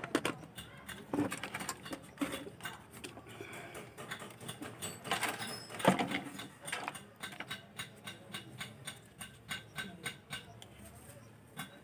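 Handling noise from a TV's power-supply board and its wiring being moved by hand: rustling, scraping and knocks, loudest about a second in and again about six seconds in. Under it runs a steady series of light ticks, a few a second.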